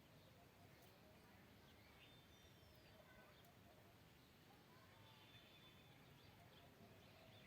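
Faint calls of several wild birds: scattered short chirps and whistled notes, some sliding in pitch.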